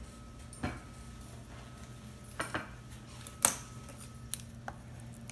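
Half a dozen separate sharp metal clicks and clacks from kitchen shears and a knife working on a whole grouper on a wooden cutting board. The loudest comes about three and a half seconds in, over a faint steady hum.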